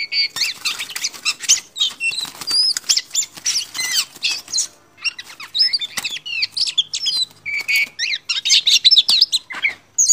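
Oriental magpie-robin (kacer) singing a rapid, varied run of loud whistles and chirps with brief pauses, mixed with wings fluttering against a wire cage.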